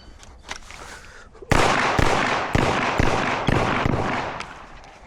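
A string of pistol shots, about two a second, starting about a second and a half in, each shot echoing and dying away after the last.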